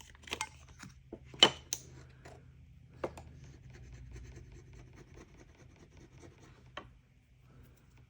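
Small parts being handled and a surface being rubbed by hand: a few sharp taps and clicks in the first three seconds, the loudest about a second and a half in, then light scratchy rubbing with one more click near the end. A steady low hum runs underneath.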